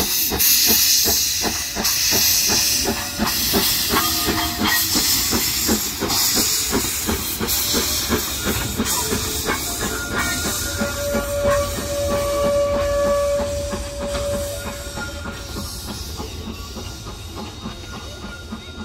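AC16-class steam locomotive moving slowly past, hissing steam, with a quick regular beat of exhaust and wheels under the hiss. A steady squeal comes in about halfway. The sound fades away near the end.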